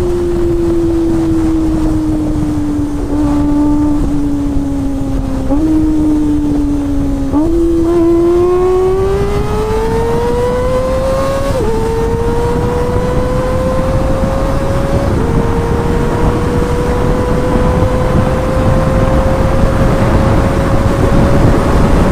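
Kawasaki ZX-25R's 249 cc inline-four engine under way, running at high revs. The engine note falls as it slows, then jumps up twice on downshifts around six and seven seconds in. It then climbs under acceleration, dropping on upshifts about twelve and fifteen seconds in, and keeps rising slowly after that.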